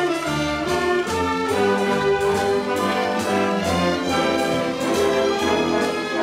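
Orchestra playing a waltz, with trumpets and French horns sounding over the strings.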